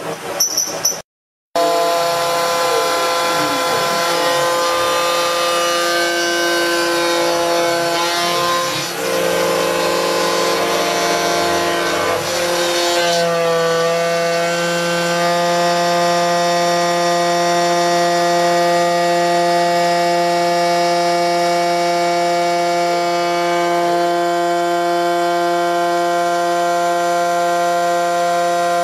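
Milling machine's end mill cutting a metal plate: a steady, ringing whine of spindle and cutter, its pitch shifting a few times in the first half as the cut changes, then holding even. The sound drops out briefly about a second in.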